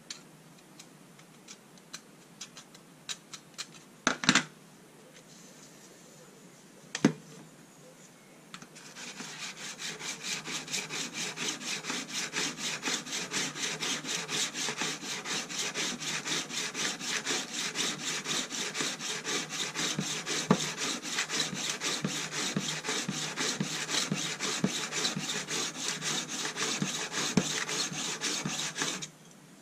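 Wilkinson Sword scissor blade being sharpened with fast, even back-and-forth strokes on a metal sharpening plate: a continuous scraping rasp of steel on abrasive. It starts about nine seconds in and stops just before the end, after a stretch of light clicks and two sharp knocks as the scissors are handled.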